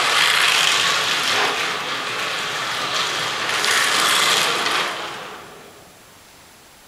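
Small electric model race cars whirring past on the track: the buzz of motor and gears swells twice, about three seconds apart, then fades away.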